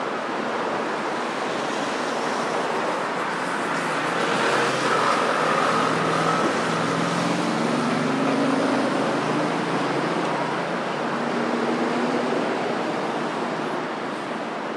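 Road traffic on a busy multi-lane city boulevard: a steady rush of tyres and engines that grows louder in the middle as vehicles pass close by, then eases off near the end.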